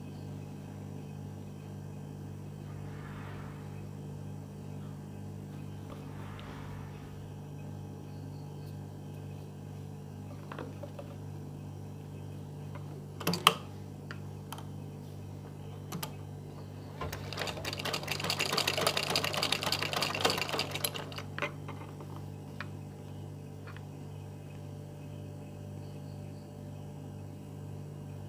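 Sewing machine stitching one short run of rapid needle strokes, about four seconds long, a little past the middle. A couple of sharp clicks come a few seconds before it, over a steady low hum.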